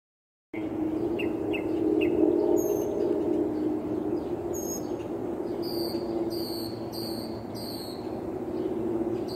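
Birds chirping outdoors, with short chirps early on and a run of about four high repeated calls in the second half, over a steady low hum.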